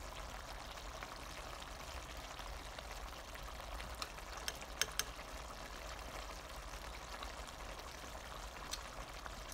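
Faint steady hiss of a pan of ground beef stew with pepper leaves simmering on the stove, with a few light clicks of a metal spoon against the pan about four to five seconds in and once more near the end.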